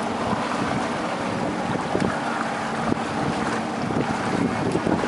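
Small fishing boat under way, its outboard motor running with a steady hum, wind buffeting the microphone and water rushing past.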